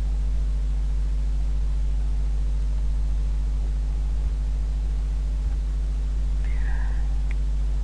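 Steady low hum with a faint hiss, the constant background noise of the voice recording, unchanged throughout. A faint short sound comes about six and a half seconds in.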